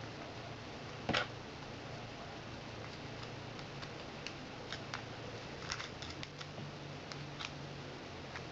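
Faint, scattered small clicks and taps, one louder about a second in, as cotton wadding is tamped down into a Zippo lighter's metal insert.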